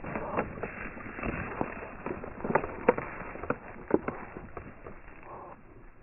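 Footsteps crunching on dry stubble: irregular sharp crunches several times a second, getting quieter near the end.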